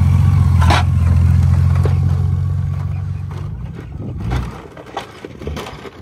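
Honda Gold Wing motorcycle engine running at low throttle as the bike crawls past over rock, then fading as it rides away, with a brief swell of throttle about four seconds in.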